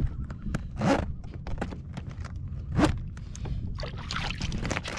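Zipper on a soft insulated cooler bag being worked, in short rasping pulls with scraping of the bag's fabric in between.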